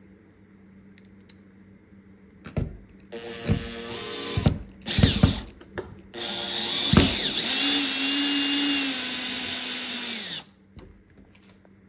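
Cordless drill/driver driving the door knob's mounting screws: a few short bursts of the motor, then one longer steady run of about four seconds that stops sharply near the end.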